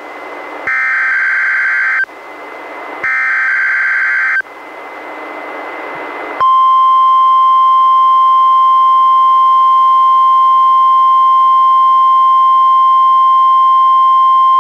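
NOAA Weather Radio test heard through a weather radio receiver: two short stretches of buzzing SAME digital header tones, the repeats of the alert header, then a couple of seconds of radio hiss. About six seconds in, the loud, steady 1050 Hz warning alarm tone starts and holds unbroken.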